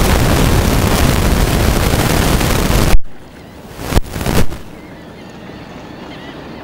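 Wind buffeting the camera's microphone on a boat at sea: a loud rush for about three seconds that cuts off abruptly, two short gusts a second later, then a quieter steady rush.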